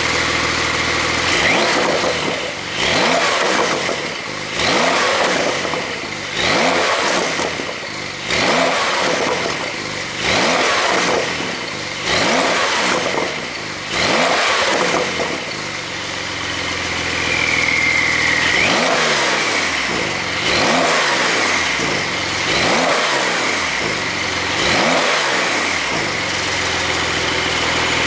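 Porsche 911 (992) Carrera S twin-turbo flat-six being revved repeatedly while standing, exhaust flaps held fully open by an ECU tune. Eight or so revs about two seconds apart, then a short steadier stretch, then four sharper blips.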